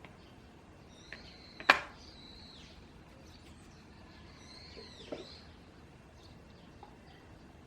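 Birds chirping in short bursts over a steady background hiss. A sharp click or tap, the loudest sound, comes about a second and a half in, with a smaller one about five seconds in.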